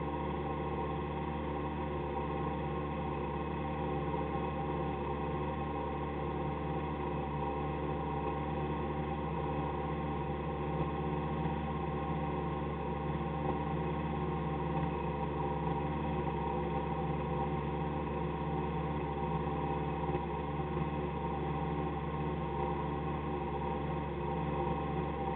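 Citroën AX autocross car's engine idling steadily at an even pitch, heard from inside the cabin, with no revving.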